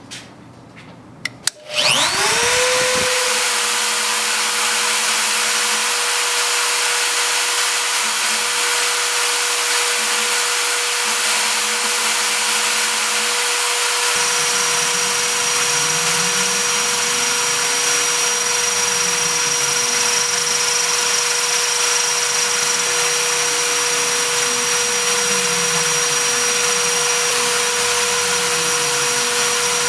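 High-speed engraving spindle on a CNC mill switched on with a couple of clicks, spinning up with a quickly rising whine, then running at a steady high pitch with a loud rushing hiss. From about halfway, the mill's axis motors add low tones that rise and fall as the table moves.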